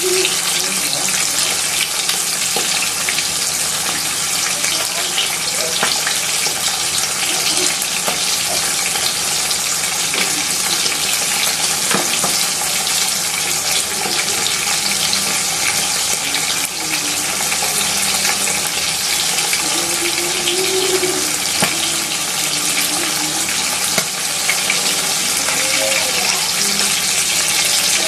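Split dried milkfish (dinaing na bangus) frying in hot oil in a pan: a steady, dense sizzle with occasional crackles.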